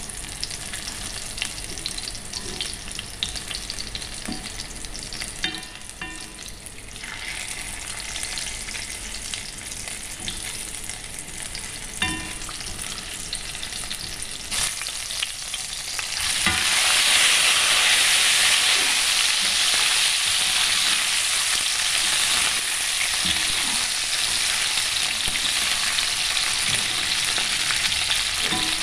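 Flour-coated chicken pieces frying in hot oil in a nonstick pot: a steady sizzle, with a few scrapes and taps of a plastic slotted spatula against the pan. The sizzle gets much louder about halfway through.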